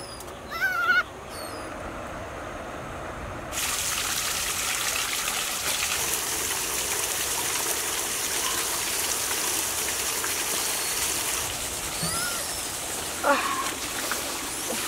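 A few short, high squeaks from a baby monkey in the first second, then a steady hiss of trickling, running water that starts suddenly about three and a half seconds in, with a few short chirps near the end.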